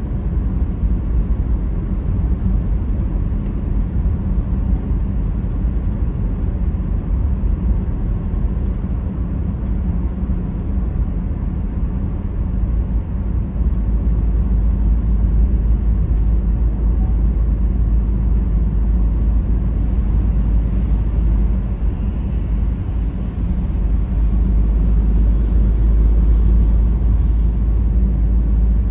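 A car driving, with a steady low rumble of road and engine noise that swells a little about halfway through and again near the end.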